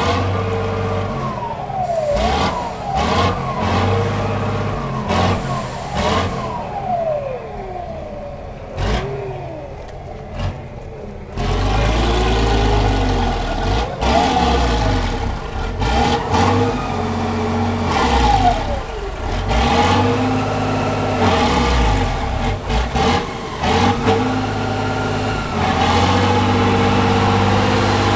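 Diesel engine of an 8x8 trial truck revving up and down repeatedly under load as it drives through deep muddy water, its pitch rising and falling in long sweeps. The engine gets louder and deeper about eleven seconds in.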